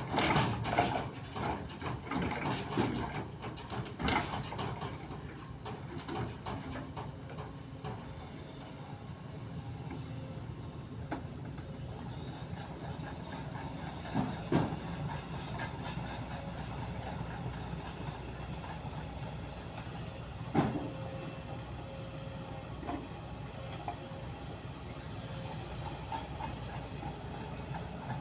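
Kobelco SK130 excavator's diesel engine running steadily while its grapple works, with a run of clanks and knocks in the first several seconds and two single loud knocks later on.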